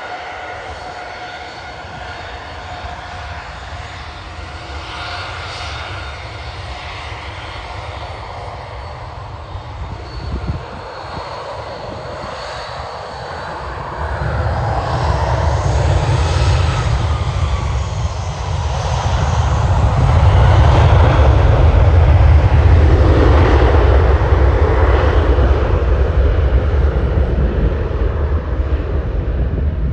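Twin turbofan engines of a Boeing 737 business jet: a steady whine at taxi power, then about halfway through a deep rumble as the engines spool up to takeoff thrust. It grows louder again a few seconds later as the takeoff roll begins, and stays loud to the end.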